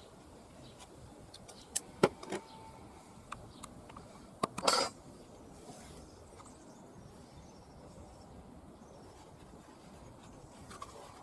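A handful of short, sharp clicks and knocks over a few seconds, the loudest ending in a brief scrape, then faint steady background.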